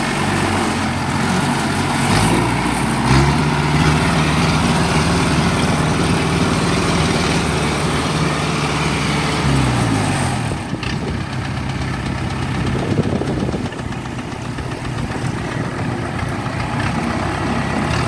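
Engine of a small tracked crawler carrier running under load as it climbs a bank and drives onto the road. Its pitch rises about two seconds in and holds steady, then drops and the sound gets quieter a little past halfway as the load eases.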